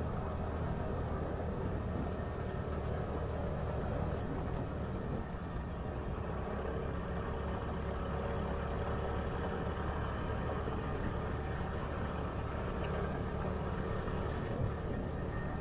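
Steady vehicle engine and road noise, an even low drone.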